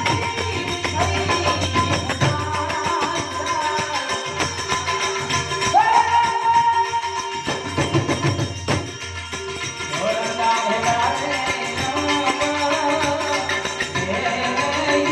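Santvani, Gujarati devotional folk music: a singer's voice sliding up into long held notes, phrase after phrase, over fast jingling percussion and a steady drone.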